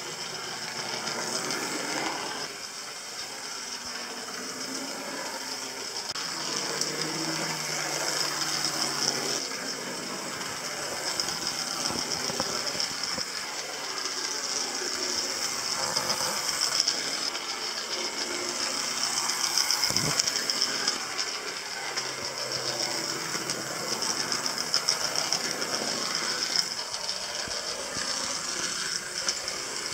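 Hornby OO-gauge GWR 0-4-0T tank locomotive running round the layout: the small electric motor whirs and the wheels rattle and tick steadily over the rails and track joints.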